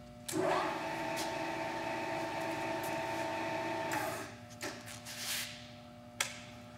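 Manford 2V milling machine's spindle motor starting up with a rising whine, running steadily for about four seconds, then stopping quickly, as the spindle brake with electronic shutoff halts it.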